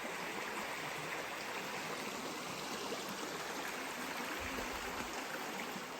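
Creek water flowing over rocks, a steady, even rush.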